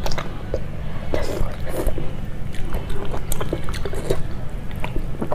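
Close-miked chewing with wet mouth smacks and irregular small clicks, from eating rice and pork curry by hand.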